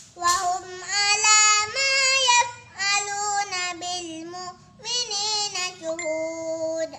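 A young boy chanting a recitation of the Quran (tilawat) in a high, melodic voice, in three long drawn-out phrases with short pauses for breath.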